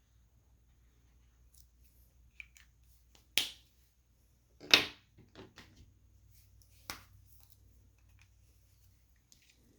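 Felt-tip markers being handled: a few sharp clicks, the loudest about a third and halfway in, with faint taps between, like a marker cap being pulled off and snapped back on.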